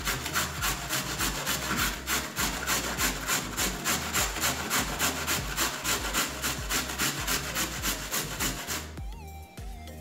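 Carrot being grated on a stainless steel box grater: quick rasping strokes, about three or four a second, that stop about nine seconds in.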